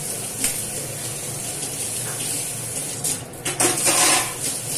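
Water running into a kitchen sink, with a steel plate clattering against it a few times near the end.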